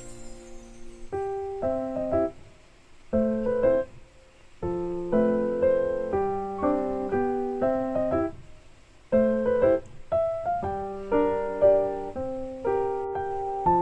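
Background piano music, played in short phrases of notes and chords with brief pauses between them.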